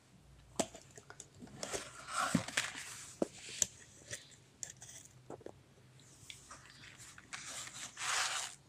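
Handling noise as a beaded necklace on a velvet display bust is touched and moved: scattered light clicks and short rustles, with longer rustles about two seconds in and again near the end.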